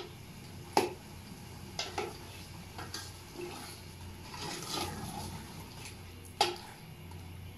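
A long metal spoon stirring and frying potatoes in thick masala in a large aluminium pot, scraping through the food and knocking against the pot about four times, the loudest knock about six seconds in.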